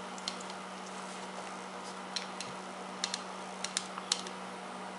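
Scattered light clicks and taps of small metal parts being handled during reassembly of a paintball marker's pneumatic ram, irregular and a few at a time, over a steady low hum.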